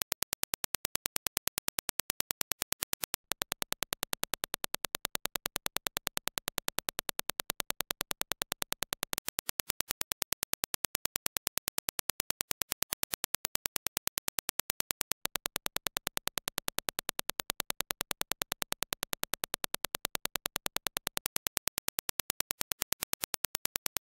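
A rapid, even train of sharp clicks, several a second: the reference Dirac impulse, an ideal single-spike test signal used to judge how fast and clean a headphone's transient response is, played over and over.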